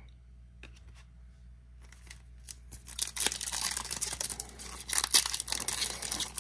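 A trading-card pack wrapper being torn open and crinkled. A few light ticks come in the first second, and the crackly tearing builds up from about two seconds in and turns loud about three seconds in.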